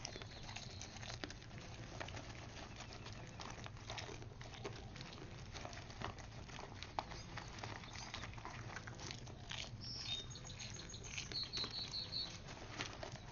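Deer eating popcorn from a paper bag held out by hand: faint, irregular crunching and clicking with light rustling of the bag. A short run of high chirps about ten seconds in.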